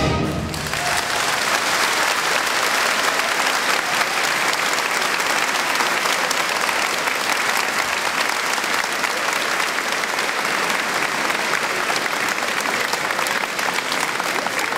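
A crowd applauding steadily. The last chord of a wind band dies away in the first half-second as the clapping takes over.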